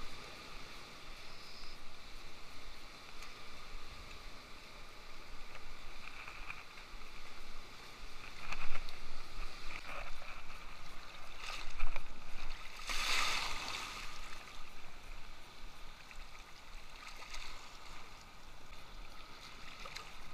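Sea water washing and sloshing close by, with a few louder surges of wash about eight, twelve and thirteen seconds in.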